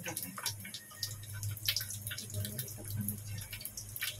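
Cooking oil heating in a wok, giving off irregular small pops and crackles over a steady low hum.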